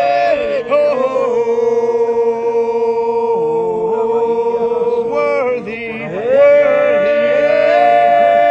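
Several voices holding long wordless tones together in a drone-like prayer chant, the pitches overlapping. About five and a half seconds in the tones break off briefly with sliding pitches, then settle on a new held note.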